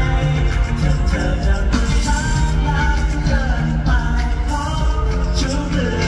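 Live pop song played loudly over an arena's speaker system: singing over a backing band with heavy bass, echoing through the hall.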